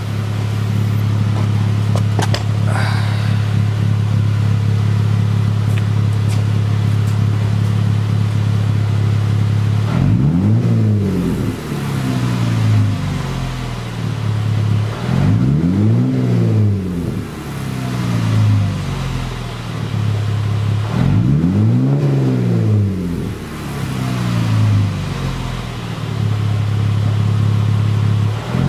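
2014 Jeep Wrangler Unlimited's 3.6-litre V6, warmed up, running through a new aFe 3-inch RB Hi-Tuck cat-back exhaust. It idles steadily for about ten seconds, then is revved three times, each rev climbing in pitch and falling back to idle. A fourth rev starts at the very end.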